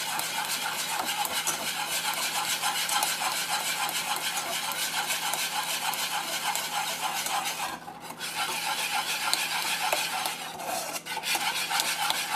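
Wire whisk beating fast against the inside of a saucepan, a rapid, continuous run of scraping clicks as an egg is whisked quickly into melted butter and sugar so that it does not scramble. The beating pauses briefly about eight and again about eleven seconds in.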